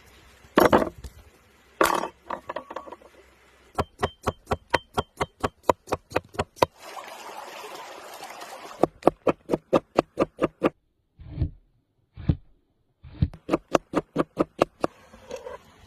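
Rapid, even knife strokes on a cutting board, about four to five chops a second, in runs of a few seconds with short breaks; a couple of heavier single chops come first.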